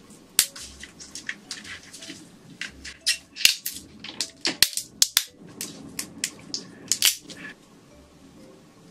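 Shell of a large cooked black tiger prawn cracking and crackling as gloved hands pull it apart and peel it: a quick irregular run of sharp cracks that dies away over a second before the end.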